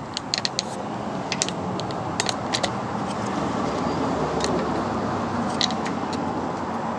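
Metal hand tools clicking and clinking irregularly while the negative battery terminal is disconnected, over a steady background hiss.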